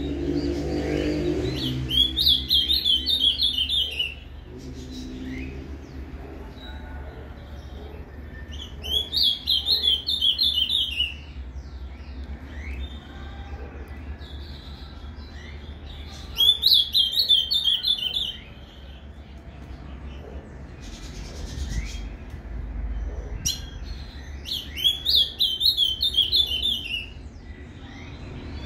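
Male ultramarine grosbeak (azulão) singing the 'Paraná' song type: four short, fast-warbled phrases of about two seconds each, spaced some seven seconds apart, with faint short chirps between them.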